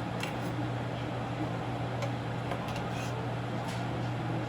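A steady low hum from a running appliance, with a few faint clicks of utensils against a dish.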